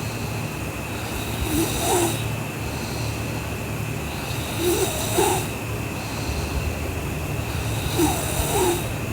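A sleeping girl snoring: three snoring breaths about three seconds apart, each gliding up and down in pitch, over a steady low hum.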